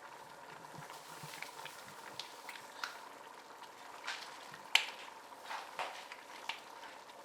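A pot of blended pepper stew base with vegetable oil and tomato paste bubbling and sputtering on the heat: a soft steady hiss with scattered pops. The sharpest click comes a little after the middle.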